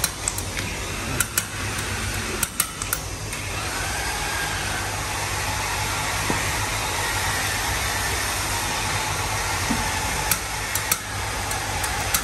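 Air-driven valve vacuum tester hissing steadily as its cup is held over the exhaust valve ports of a cylinder head, checking how well the valves seal on their seats, with a few sharp clicks as the tool is set down and moved between ports. The readings come out somewhat weak, so the valve seats are to be recut.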